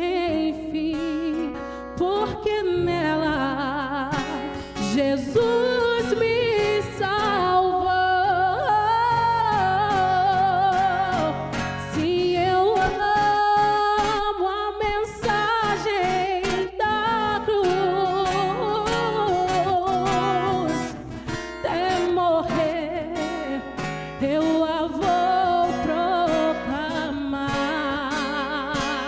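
A woman singing a Brazilian gospel worship song with a wavering vibrato, accompanied by an acoustic guitar.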